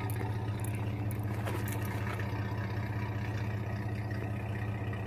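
1998 Chevy S-10 ZR2's 4.3-litre V6 idling steadily, with a deep growl through its newly fitted aftermarket muffler.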